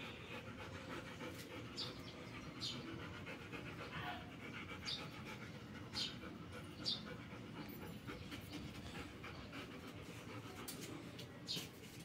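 Golden retriever panting softly and steadily, with a few short faint ticks.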